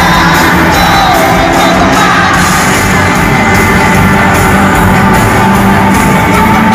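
Live pop band playing with a singer's vocals on top, loud and continuous.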